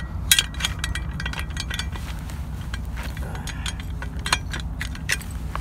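Scattered sharp metal clinks and clicks of a steel pin and a steel XTIRPA mounting bracket being fitted and pinned onto a self-retracting lifeline (SRL) unit, thickest in the first second and a half, over a low steady hum.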